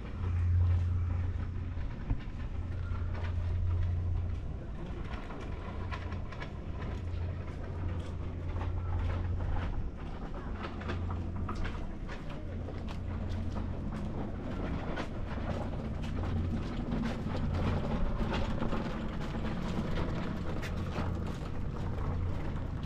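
Calico mother cat purring while her kittens nurse: a low, steady purr that pulses on and off with her breaths every second or two, with scattered small clicks over it.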